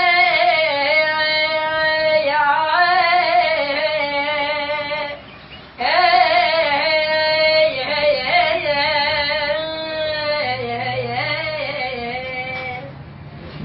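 An Iraqi child singing solo in a high voice, drawing out long, wavering, ornamented notes, with a short breath break about five seconds in.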